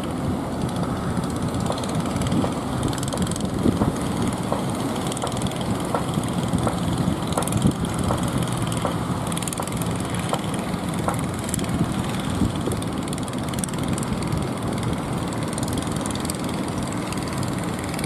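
A fishing boat's engine running steadily with a low hum, over the wash of wind and breaking waves.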